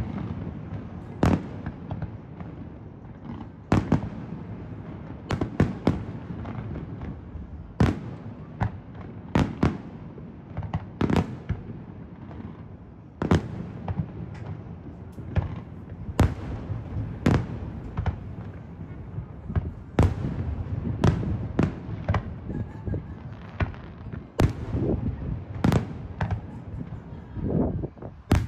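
Aerial fireworks shells bursting in an irregular barrage: sharp bangs about every second, some in quick clusters, over a continuous low rumble.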